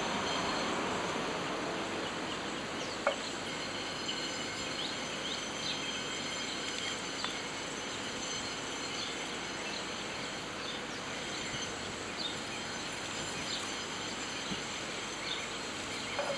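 Steady background noise, with a sharp click about three seconds in and a scatter of faint high chirps and ticks.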